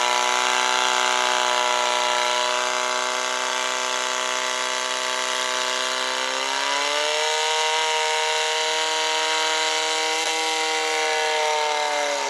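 Portable fire-pump engine running flat out, pushing water to two attack hoses. It holds a high, steady engine note that climbs a step about halfway through and starts to fall right at the end.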